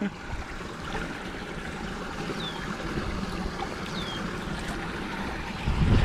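Water rushing steadily through a culvert pipe that has just been cleared of a beaver plug. Two brief high chirps sound over it in the middle.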